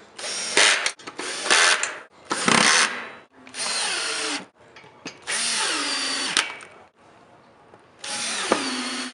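Power drill-driver run in about six short bursts of roughly a second each. It is driving the bolts and wood screws that fasten a table's cross base to the underside of the tabletop.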